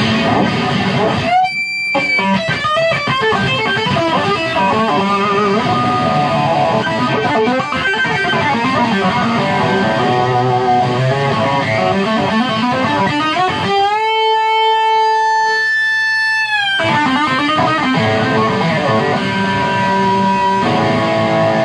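Electric guitar played through a Ceriatone One perCentaur overdrive pedal with its treble and burn (gain) knobs all the way up, into a Ceriatone amp: a distorted lead run that gets into scream territory. About two-thirds through, one note is held for about three seconds before the playing resumes.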